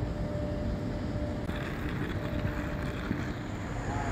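Steady low rumble and hiss of a large airport terminal's background, with a faint hum. The hiss turns brighter about a second and a half in.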